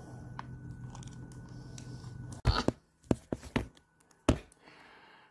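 Close handling noise from hot-gluing ribbon onto wooden craft blocks: faint light ticks over a low steady hum, then from about halfway a run of about seven sharp knocks and clicks.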